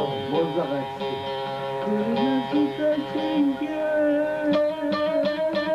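A bağlama (saz) playing a Turkish folk melody, with held notes at first and then quick plucked strokes from about four and a half seconds in.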